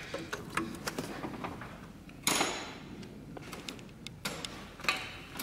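Hand tools and metal parts clicking and knocking during work on an engine, with a short scraping noise about two seconds in and a longer one about four seconds in.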